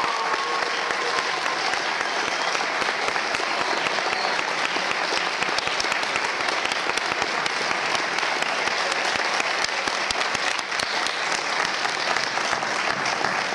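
An audience in a large hall applauding: sustained, dense clapping from many hands.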